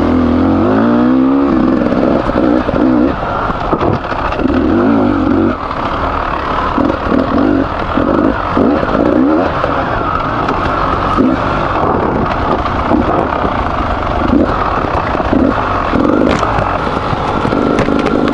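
Beta 300RR two-stroke enduro engine, freshly rebuilt with a new piston and bearings, revving up and down in repeated throttle surges as the bike is ridden.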